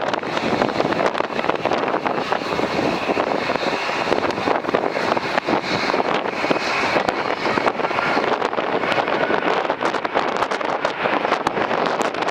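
Strong, gusty wind buffeting the microphone in a continuous rough rush. Under it is the sound of a Boeing 787-9 jet airliner landing.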